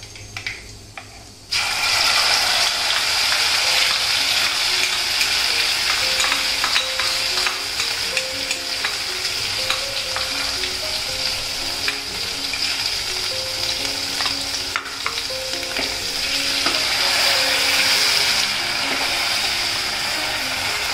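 Wet masala paste of ground ginger, garlic, green chilli, onion and tomato hitting hot oil tempered with mustard seeds, cumin and asafoetida in a stainless-steel kadhai: a loud sizzle starts suddenly about a second and a half in and runs on steadily. A spoon and a ladle scrape and click against the steel pan as the paste is pushed in and stirred.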